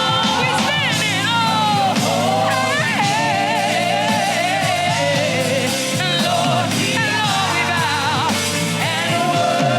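Live gospel worship music: a singer's voice with wavering, melismatic lines over a full band with bass and keyboard.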